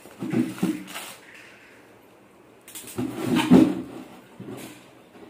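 Kitchen containers and utensils being handled: dull knocks and clatter in two short bursts, about half a second in and again around three seconds in.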